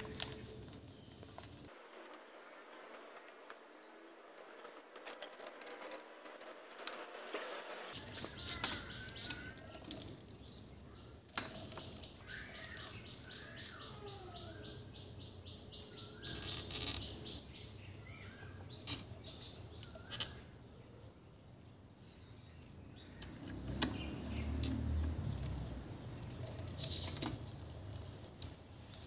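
Birds chirping and calling, with scattered small clicks and knocks from a chrome double tap being turned by hand onto a threaded water pipe. A brief low rumble near the end is the loudest part.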